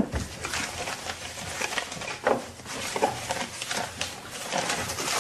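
Papers rustling and shuffled, with small knocks, as the contents of an open writing desk are rummaged through.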